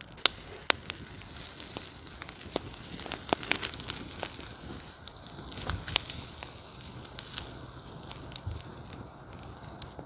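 Wood campfire of coals and flames crackling under a wire grill grate, with irregular sharp snaps, the loudest about six seconds in.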